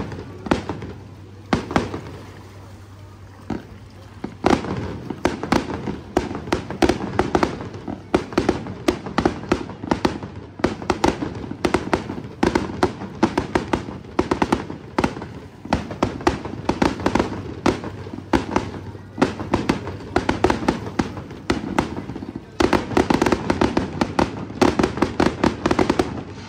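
Aerial fireworks display: a rapid, continuous barrage of bangs and crackles. It thins out briefly about two seconds in, then builds again to a very dense run near the end.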